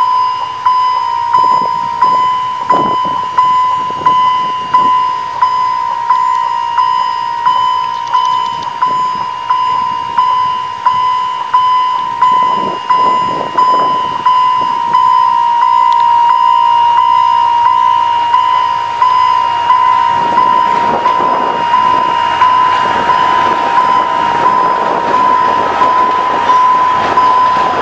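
Railway level-crossing warning bell ringing steadily, a single bright tone struck about one and a half times a second, signalling an approaching train. In the last several seconds a wider rumbling noise, typical of a passing train, rises beneath it.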